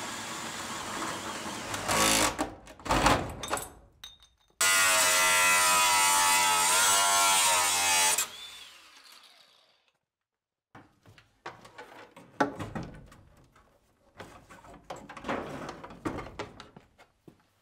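A drill spinning a hole saw through a sheet-metal plate, with a few sharp knocks about two to four seconds in. Then an angle grinder runs loudly for about four seconds, its pitch wavering as it grinds the cut edge, and winds down; after a short lull come scattered clicks and knocks of parts being handled.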